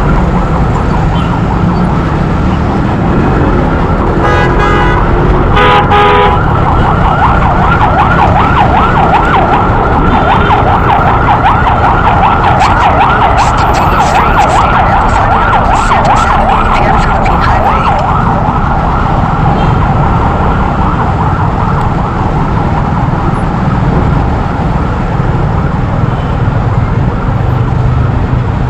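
Siren sounding with a fast warble over steady engine and road rumble from riding in traffic. A horn-like blast sounds briefly twice, about four and six seconds in.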